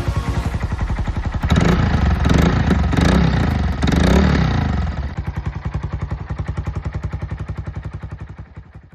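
Honda Grom's small single-cylinder four-stroke engine idling through its replacement exhaust. From about a second and a half in it is revved repeatedly for a few seconds, then it drops back to a steady idle and fades out at the end.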